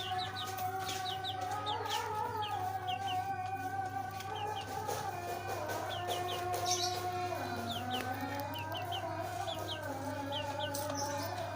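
Pet birds chirping: many short, high, falling chirps in quick succession over steady held tones.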